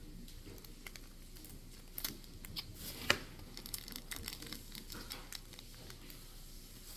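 Paper, tape and plastic-bag filling crinkling and crackling in irregular bursts as a homemade paper squishy is handled and taped shut, with a louder crackle about three seconds in.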